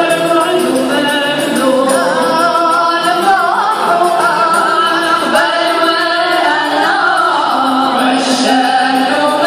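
Live Moroccan Andalusian orchestra (ouds, bowed strings and double bass) playing a song, with voices singing the melody over the ensemble.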